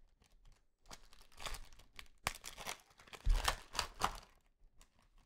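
Plastic trading-card pack wrapper crinkling and tearing as a pack is opened. There are quiet rustling bursts over a few seconds, with a sharp click partway through.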